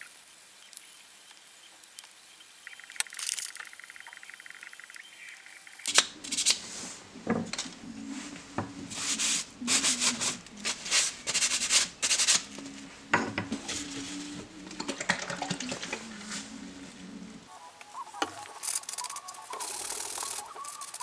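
A cloth rubbing over small hardwood blocks in quick back-and-forth wiping strokes, starting about six seconds in and thinning out near the end.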